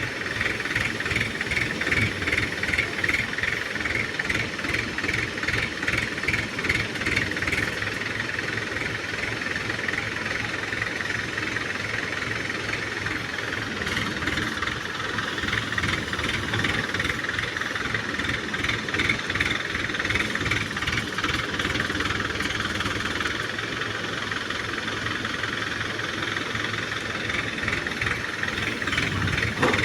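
Diesel engine of a 14-ton Hydra mobile crane running steadily while the crane works, with a fast, even pulsing throughout.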